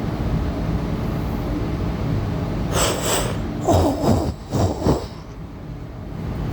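A Tangara electric multiple unit train running, a steady rumble heard from inside the carriage. About three seconds in, a loud cluster of short noises lasts about two seconds, and the sound is duller for a moment afterwards.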